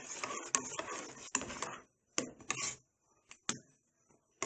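Stirring a thickening tapioca-starch paste in a small pan: a utensil scrapes and clicks against the pan for about two seconds, then a few separate knocks follow.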